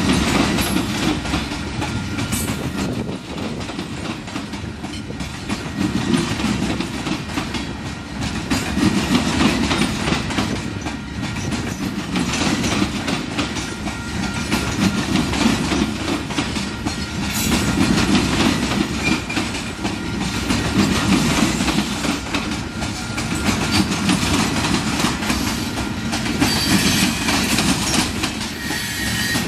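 Loaded coal hopper cars of a long freight train rolling past, steel wheels clicking over the rail joints in a steady rumble that swells and eases every few seconds.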